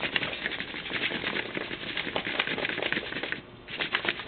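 Cut potatoes frying in hot oil in a pan, with a steady dense sizzle and crackle that briefly drops away about three and a half seconds in.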